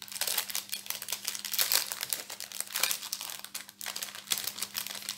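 Thin plastic zip-lock bag of diamond-painting beads crinkling in a rapid run of crackles as it is handled and pulled open by hand.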